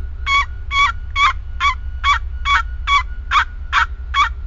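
Hunter's turkey call giving a run of about ten short, evenly spaced yelps, a little over two a second, used to lure an animal closer.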